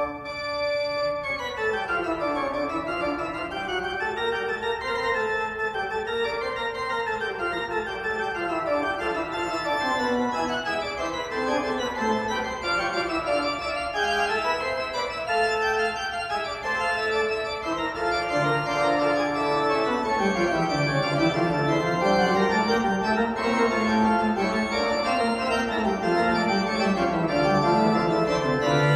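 Background music of sustained keyboard tones, organ-like, with a melody that slowly rises and falls, starting suddenly at the opening.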